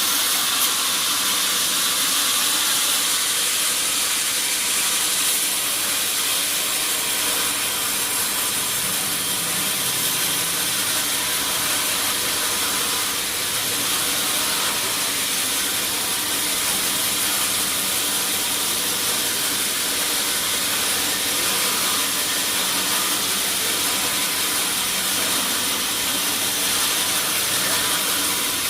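Sawmill saw running steadily: an unbroken high hiss with a faint steady hum beneath it, unchanging throughout.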